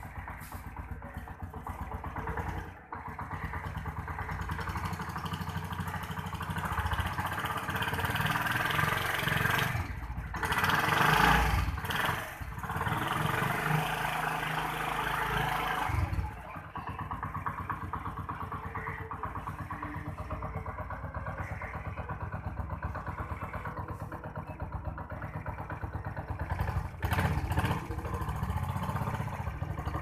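Atlas Honda CD 70's small single-cylinder four-stroke engine running at the bike's side. It gets louder and rougher for several seconds in the middle, then settles back to a steadier, quieter run about halfway through.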